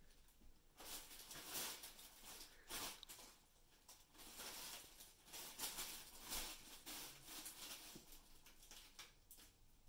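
Faint rustling and crinkling of a fabric cat play tunnel as cats move inside it and lean on it, coming in soft irregular bursts.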